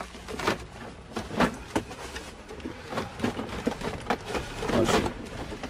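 Hard plastic console trim around a manual gear lever being handled and pried loose, giving irregular sharp clicks and knocks, about six in a few seconds, as the panel is unclipped to get at the gear-shift cables.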